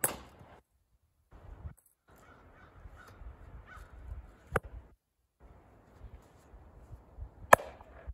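Splitting maul striking firewood rounds on a chopping block: a sharp crack right at the start and a louder one about 7.5 s in, with a lighter knock of wood about midway.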